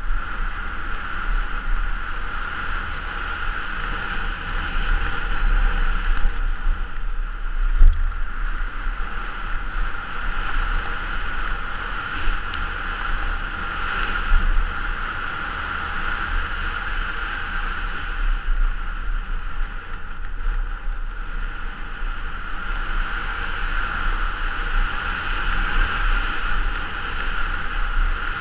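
Fat-tyre snow bike descending a packed-snow race course at speed, heard from a helmet-mounted camera: steady wind rush and low rumble with a constant whirring tone. A single sharp bump about eight seconds in is the loudest moment.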